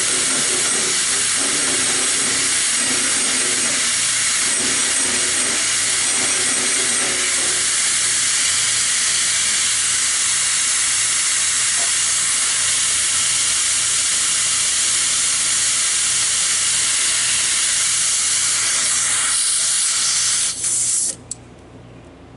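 Hose-fed hand die grinder running with a loud, steady hiss while the teeth of a band-saw blade are ground. It shuts off abruptly near the end.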